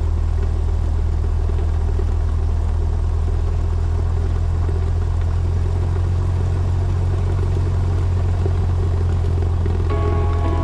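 Cessna 172's engine and propeller running steadily at low power, a constant low drone heard from the cockpit. Music comes in near the end.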